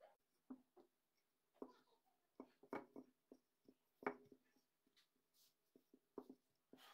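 Faint handling sounds of dough work on a silicone baking mat: short knocks and scrapes from a plastic dough scraper and a wooden rolling pin, the sharpest knock about four seconds in.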